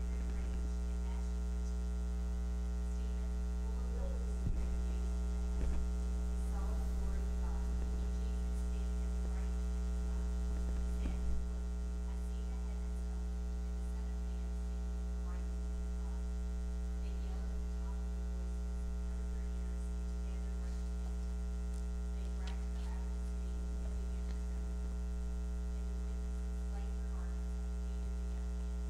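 Steady electrical mains hum with a stack of overtones, running unchanged throughout, with a faint, distant voice reading underneath at times.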